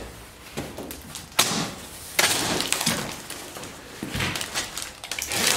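Large cardboard shipping box being opened: packing tape slit and ripped and the cardboard flaps pulled apart, several rasping tears with sharp cracks, the longest about two seconds in.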